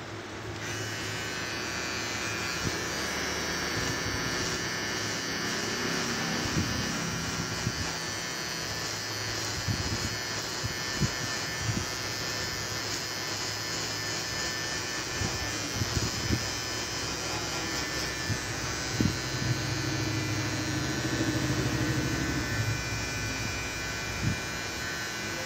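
Cordless electric beard trimmer switched on about half a second in and buzzing steadily as it cuts beard hair over a comb, with occasional light clicks.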